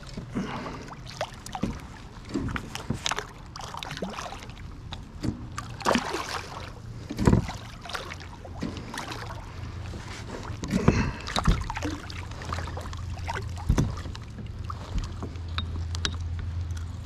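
Irregular splashes and knocks of a large catfish being handled at the side of a plastic fishing kayak, over a steady low rumble.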